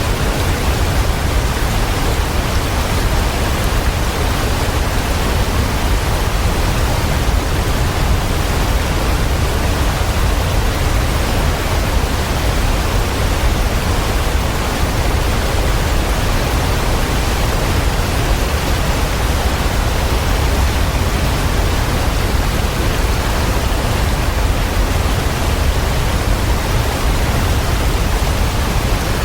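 Waterfall rushing in a steady, unbroken roar of falling water, heaviest in the low end.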